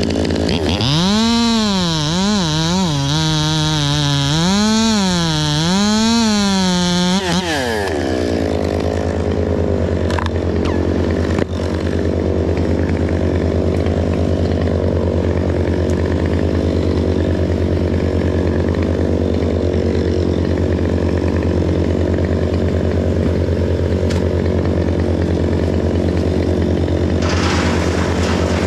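Chainsaw revving up and down repeatedly for about seven seconds, then dropping back, over a steady engine drone. Near the end a harsher noise comes in.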